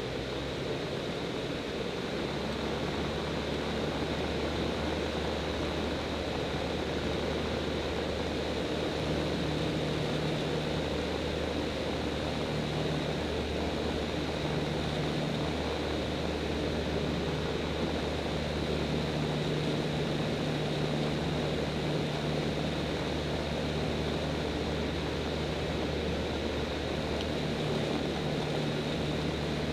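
X-Air Hanuman ultralight's engine and propeller running steadily in cruise, heard from the cockpit as a low drone under a wash of wind noise.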